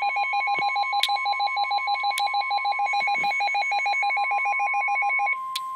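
NOAA Weather Radio emergency alert: a weather-radio receiver's rapid pulsing alarm beep stops about five seconds in. Under it, the broadcast's steady 1050 Hz warning alarm tone marks the start of a flood warning. A few sharp clicks are heard.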